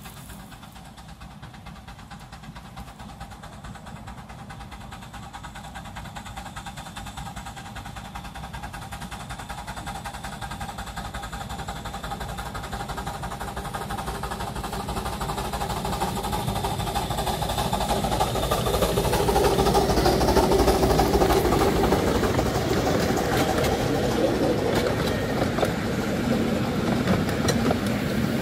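1970 Severn Lamb 15-inch gauge steam locomotive No. 3 Dougal approaching along the line with its train, growing steadily louder and loudest about twenty seconds in, then its carriages rolling past close by.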